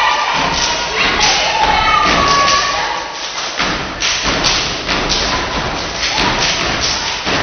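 Step team stepping in unison: a steady rhythm of stomps on the stage floor and hand claps, several sharp thuds a second.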